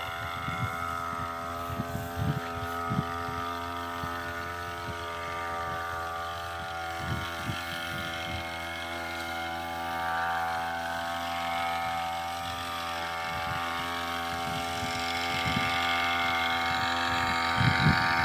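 Engine of a motorised crop mist sprayer running steadily while spraying cotton, a constant even-pitched drone that swells slightly a few times.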